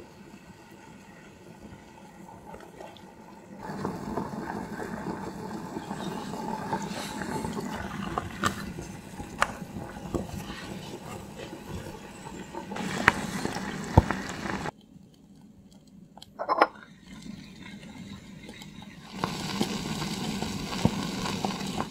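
Miniature doenjang stew bubbling and simmering in a small earthenware pot, with a few sharp clicks. The bubbling grows louder about four seconds in, drops away briefly in the second half, then resumes.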